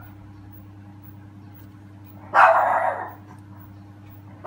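Dog barking in the background: one longer bark about two seconds in and a short bark at the very end, over a low steady hum.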